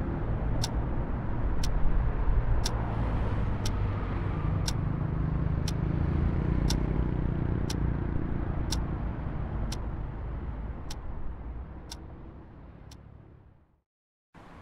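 A clock ticking steadily, about once a second, over a low rumble. Both fade out near the end.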